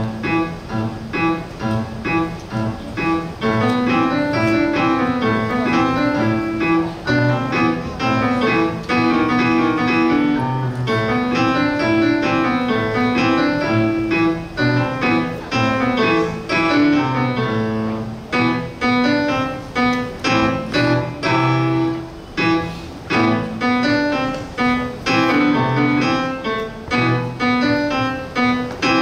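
Piano solo played by a child: a steady run of notes over a bass line that moves in a repeating pattern.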